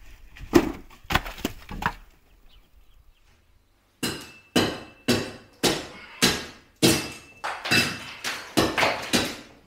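Hammer blows striking the wall while a window opening is cleared out: a few irregular knocks, a short pause, then about ten strong blows roughly two a second, each with a brief metallic ring.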